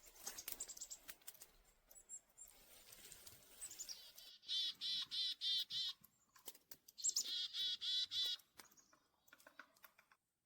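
A small winter songbird calling twice, each call a brief high note followed by a quick run of about six repeated notes, with scattered light clicks and rustles around them.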